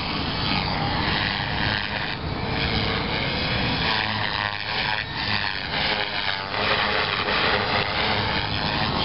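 Electric model helicopter in 3D flight, its motor and rotor whining, the pitch gliding up and down as it manoeuvres.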